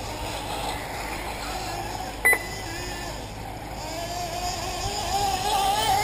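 Radio-controlled off-road model cars running on the track, with a steady mechanical noise throughout. A short electronic beep sounds about two seconds in. In the second half one car's motor note wavers and rises in pitch, growing louder.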